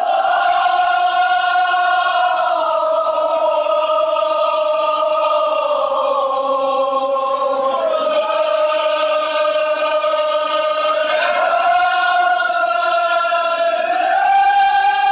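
Kashmiri marsiya (Muharram elegy) chanted by a group of mourners in unison, in long drawn-out notes that step down in pitch in the first half and climb back near the end.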